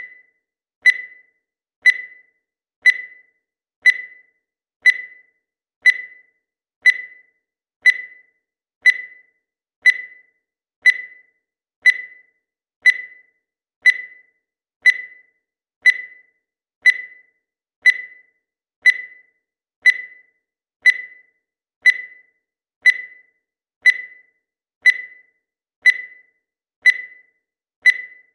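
Digital timer beeping once every second, each a short single-pitch electronic beep that starts sharply and dies away quickly, marking each second of a countdown.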